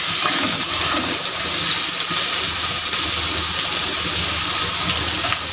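Sliced onions and green capsicum sizzling steadily in hot oil in a metal kadai, stirred with a flat metal spatula.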